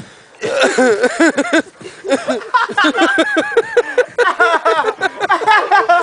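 Human voices making rapid, high-pitched wordless yelps in quick succession, starting about half a second in.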